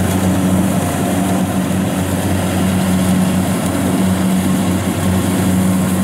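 Kubota DC70 Plus combine harvester's diesel engine running steadily under load while the machine cuts and threshes lodged rice, a constant hum with a rushing mechanical noise over it.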